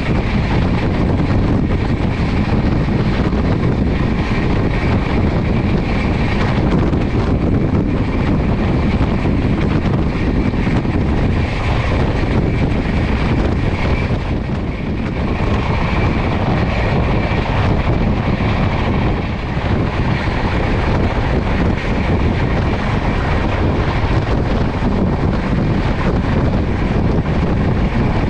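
Passenger train running at high speed: a steady, loud rumble with a rushing noise over it, with no break.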